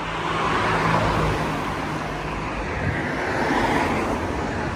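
Road traffic on a wet street: cars passing with a hiss of tyres on wet tarmac that swells about a second in and again later.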